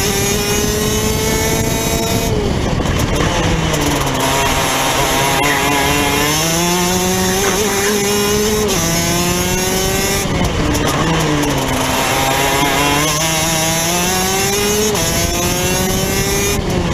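Onboard sound of a Rotax DD2 kart's 125cc two-stroke engine under racing throttle. The pitch climbs as it accelerates, falls away sharply as the throttle comes off about two seconds in, again about ten seconds in and near the end, then climbs again.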